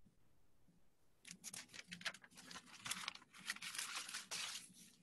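Faint rustling and crinkling: a run of short, scratchy rustles that starts about a second in and stops shortly before the end.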